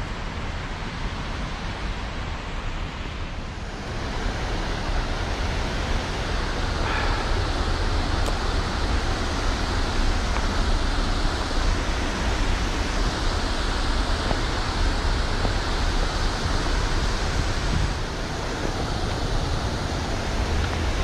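Mountain stream water rushing steadily over rocks, louder from about four seconds in.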